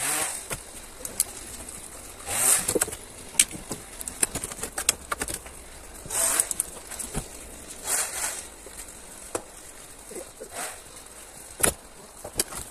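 Dry deadwood pine poles being loaded onto a trailer: scattered sharp wooden knocks and clatters, with several short rustling, scraping bursts as poles are dragged and dropped onto the pile.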